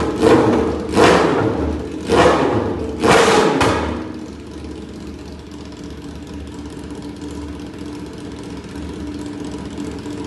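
BMW S1000RR's inline-four engine, without its Akrapovič exhaust, revved in about four quick throttle blips a second apart, then settling back to a steady idle.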